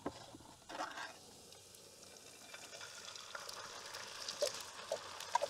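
Eggs and baked beans frying in a wok pan: a soft, crackling sizzle that grows gradually louder, with a few light clicks.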